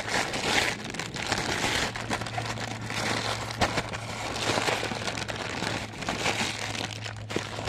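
Plastic packaging bag crinkling and rustling continuously as it is pulled and torn open by hand, with a few sharp crackles.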